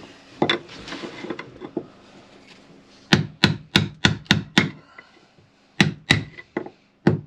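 Hammer blows on a tool set against an old skin fitting in a wooden boat hull, knocking the through-hull fitting loose. A few soft knocks come first, then a run of six sharp knocks at about three a second from around three seconds in, and three more near the end.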